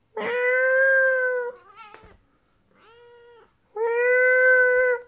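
British Shorthair cat meowing three times: two long, loud, steady meows with a shorter, quieter one between them.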